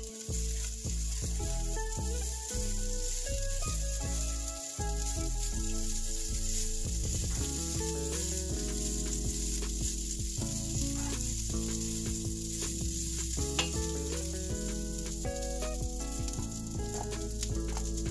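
Leftover rice sizzling as it fries in garlic oil in a nonstick pan, stirred now and then with a wooden spatula, a steady hiss. Background music plays underneath.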